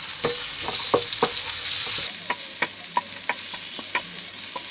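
Squid and garlic sizzling in hot oil in a non-stick frying pan while being stir-fried with a wooden spatula, which knocks and scrapes against the pan many times. The sizzle grows louder about two seconds in.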